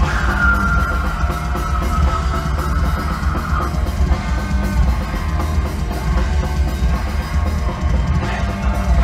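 Symphonic black metal band playing live at full volume: distorted electric guitars, bass and a pounding drum kit, with a high note held over them for the first few seconds.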